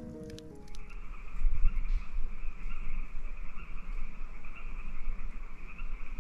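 Steady trilling chorus of small calling animals, in two high-pitched bands, over a low rumble. Background music fades out about half a second in.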